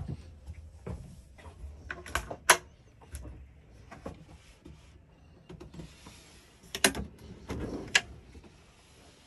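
Wooden cupboard door and drawer being opened by hand. Sharp clicks and knocks from the catches and hinges come about two seconds in and again near the end, with a short sliding rub among the later ones.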